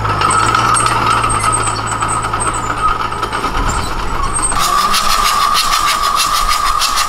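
Small crawler bulldozer's diesel engine running steadily. About four and a half seconds in, the sound switches abruptly to another engine running with a fast, even clatter.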